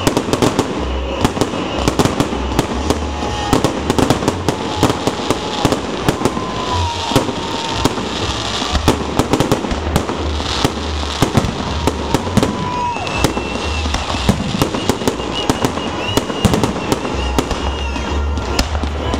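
Fireworks salute going off in a dense, continuous barrage: many sharp bangs and crackles over deep, rolling booms.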